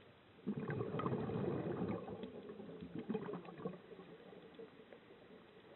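Scuba diver's exhaled breath bubbling out of the regulator, heard underwater: a burst of bubbling starts about half a second in, is strongest for a second or so, then trails off in irregular gurgles and pops.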